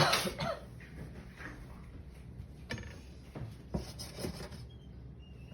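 Kitchen clatter of cookware and utensils being handled: a sharp clatter right at the start, then scattered light knocks and clicks.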